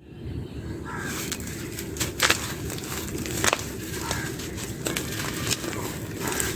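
Dry clay crumbling and crunching, with two sharp cracks about two and three and a half seconds in and smaller clicks between, over a steady low background rumble.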